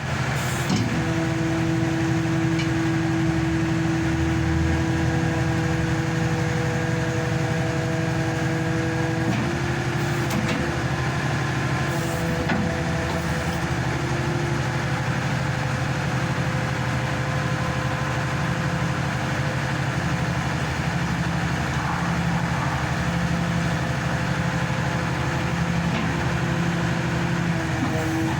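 Hydraulic static pile driver's engine and hydraulic power pack running steadily, with a steady whine that shifts slightly in pitch about nine seconds in.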